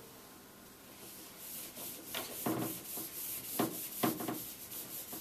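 Whiteboard eraser rubbing across a whiteboard in a series of back-and-forth wiping strokes, starting about a second in.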